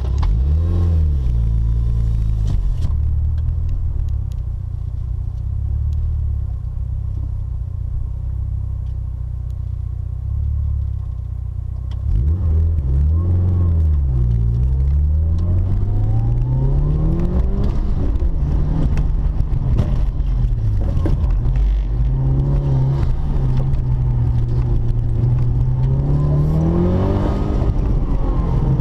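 Mitsubishi Lancer Evolution V's turbocharged four-cylinder engine, heard from inside the cabin. It idles steadily, is revved up and down a few times about twelve seconds in, then pulls away with the revs climbing and falling through the run.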